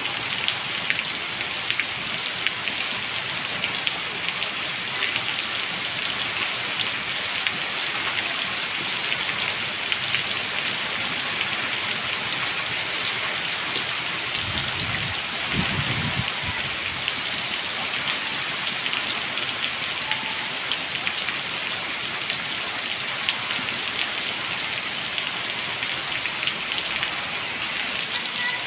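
Rain falling on a sheet of standing water: a steady hiss dotted with the fine ticks of single drops. A brief low rumble comes about halfway through.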